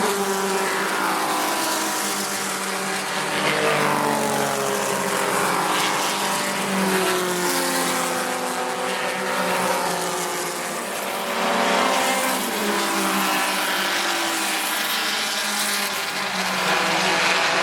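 Historic racing cars passing one after another at speed, their engine notes sweeping up and then down in pitch as each goes by, with several engines overlapping.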